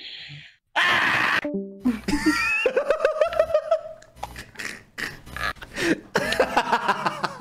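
People laughing hard over background music, with quick pulses of laughter through most of it.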